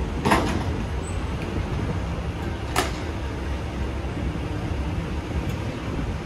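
Vehicle engines and traffic on a quayside, a low steady rumble, with two sharp knocks: one about a third of a second in and another near three seconds in.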